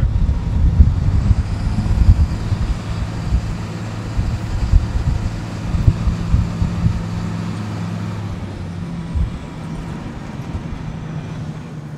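Hydroseeding truck driving on the road: a steady low engine drone with road noise, broken by irregular low thumps over the first several seconds that then settle.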